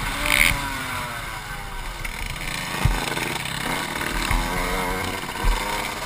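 Motocross bike engine heard onboard from the rider's helmet, its revs dropping over the first couple of seconds, then climbing again, with wind rumble on the microphone. A couple of dull thumps come about three seconds in and again near the end.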